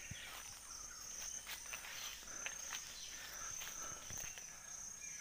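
Steady high-pitched drone of insects, with a scattering of light clicks and rustles.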